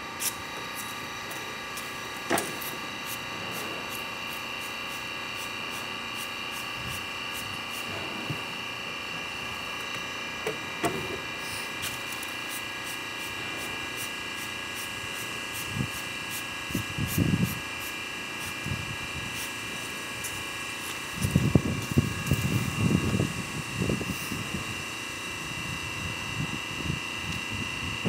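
Plywood panels and wooden drawer parts being handled and set down against a wall: scattered knocks, then a run of clattering and scraping in the last several seconds. A steady high-pitched hum sounds underneath throughout.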